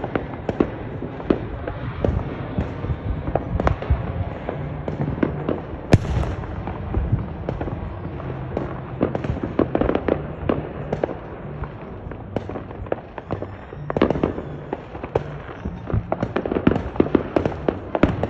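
Fireworks going off without pause: a dense crackle of many pops and bangs, the loudest single bang about six seconds in.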